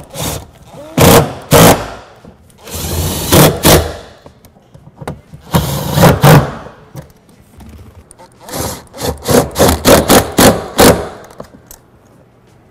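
Cordless driver with a 10 mm socket on an extension running 10 mm bolts into the rear seat's bottom mounts, in a series of short bursts with a quick run of them near the end.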